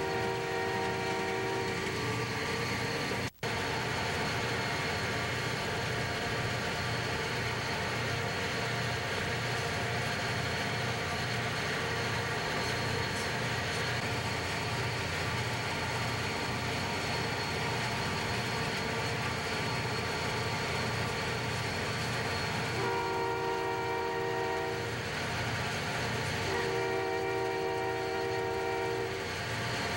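Burlington Northern diesel freight locomotives running steadily, heard from a vehicle pacing alongside with constant road and wind noise. The locomotive's horn sounds a chord of several notes: a blast ends in the first couple of seconds, then two long blasts come near the end and a third starts just before it closes. The sound cuts out for an instant about three seconds in.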